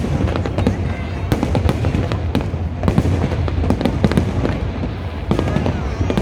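Aerial fireworks going off in rapid, overlapping bursts: many sharp cracks close together over a continuous deep rumble of booms.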